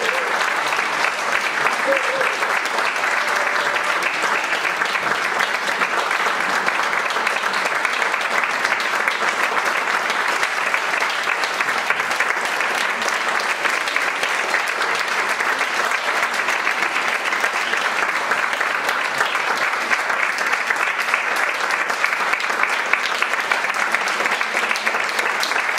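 Audience applauding: dense, even clapping that holds steady throughout. A few voices are faintly heard in the crowd in the first couple of seconds.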